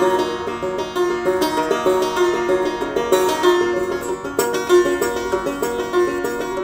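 Banjo fingerpicked in a quick, evenly repeating pattern of plucked notes.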